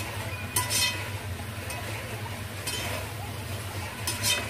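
A cooking utensil stirring food in a pot on the stove, clinking and scraping against the pot three times, over a steady low hum.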